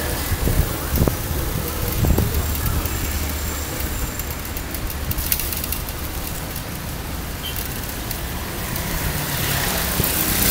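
Steady rushing noise of riding along a wet road: wind on the phone microphone and tyres on wet asphalt, with a few sharp knocks in the first couple of seconds as the ride jolts over bumps.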